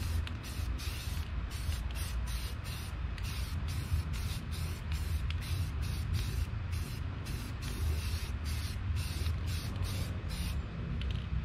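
Aerosol spray-paint can hissing as white paint is sprayed onto steel wheel rims, in quick short bursts a few times a second. The spraying stops shortly before the end.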